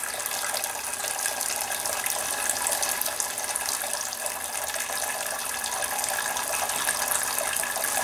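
Hot water streaming from a Bunn drip coffee maker's brew head into a glass carafe, a steady splashing trickle. It is brewing a pot of plain water to rinse the descaling cleaner out of the machine.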